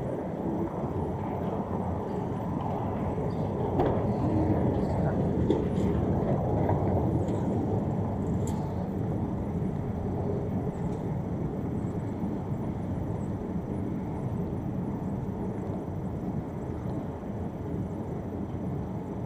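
Steady low rumble of a long escalator running, with faint voices and a few light clicks in the first several seconds.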